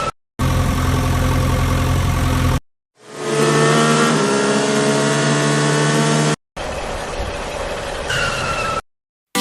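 A string of separate vehicle engine sound clips with short silences between them. First comes a steady low engine hum, then an engine revving up with rising pitch, then a noisier running sound with a short falling tone near the end.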